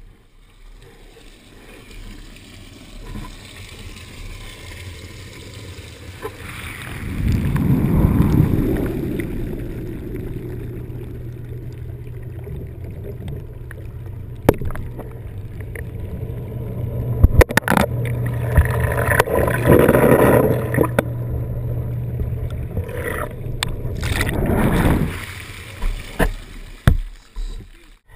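Water churning and sloshing in a fishing boat's seawater crab holding tank, heard muffled through a submerged camera housing. A steady low hum runs through the middle, and there are a few sharp knocks.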